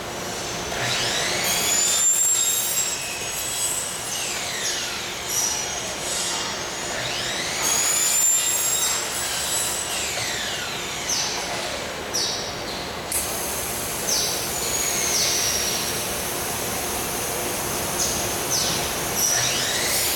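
Shop machinery running, with high squealing whines that glide up and down in pitch and recur every few seconds over a steady hum.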